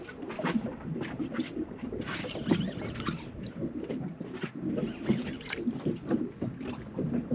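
A conventional fishing reel being cranked under load during a fish fight, its gears clicking and whirring irregularly, mixed with water slapping against a small boat's hull.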